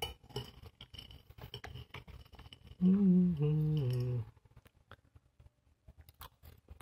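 A metal spoon clinking and scraping on a glass plate while scooping dry fried noodle sticks. About three seconds in, a person hums for about a second, the pitch stepping down, which is the loudest sound.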